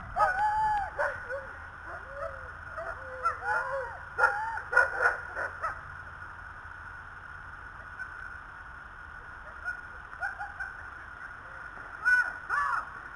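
Dogs yelping and howling in short, pitched calls that rise and fall, in a cluster over the first few seconds and again near the end.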